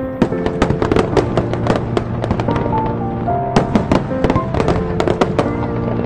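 Fireworks bursting overhead in rapid succession: many sharp bangs and crackles, several a second, with music playing under them.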